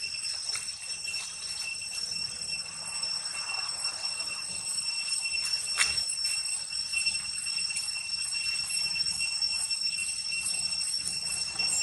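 Cicadas singing in a steady, high-pitched ringing drone, with a few faint rustles of dry leaves.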